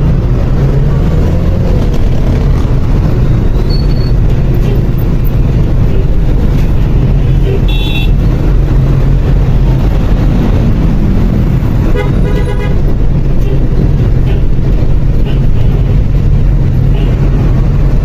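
Loud, steady rumble of city street traffic, engines and buses running. There is a short high beep about eight seconds in, and a car horn honks for under a second a little after twelve seconds.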